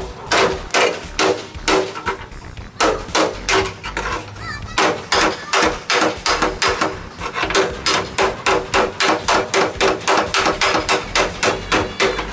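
Hammer blows on the rusty steel frame rail of a 1967 VW Bus, about three a second with a couple of short pauses in the first half, each blow ringing.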